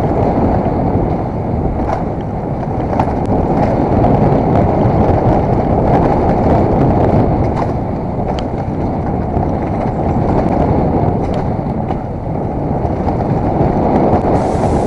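Wind buffeting a helmet-mounted GoPro's microphone at riding speed, over the rumble of mountain-bike tyres on a rough dirt trail, with scattered sharp clicks and rattles from the bike.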